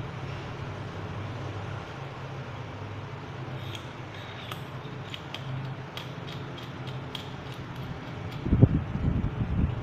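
Handling of a collapsible baton: a run of small light clicks and ticks in the middle, then a few dull thumps near the end, the loudest moment, over a steady low hum.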